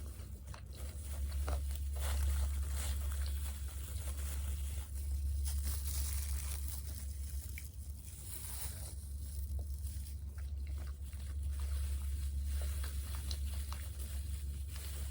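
Close-miked chewing and biting of fried chicken and fries: crunchy bites with wet, squishy chewing, over a steady low hum.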